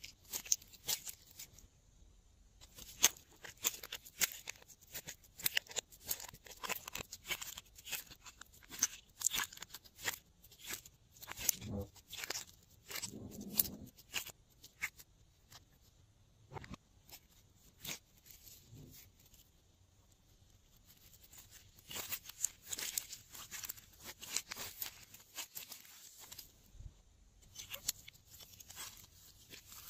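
Glossy glitter slime being squeezed, stretched and kneaded by hand, giving irregular wet crackles and small pops in dense clusters, with a quieter spell past the middle.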